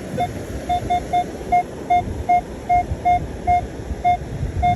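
Metal detector target tone: about a dozen short beeps on one steady tone, coming irregularly at two to three a second as the coil sweeps over a buried target. The detector's operator reads it as a good dime sound, which he hopes is a silver coin.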